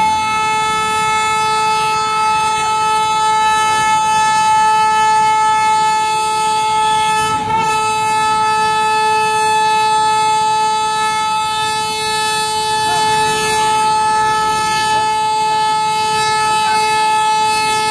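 A long, steady horn-like tone at one unchanging pitch, rich in overtones, with a brief break about seven and a half seconds in.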